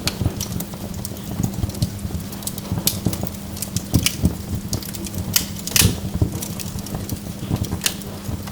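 Burning logs crackling: irregular sharp snaps and pops over a low rumble of the fire, with the loudest pop about six seconds in.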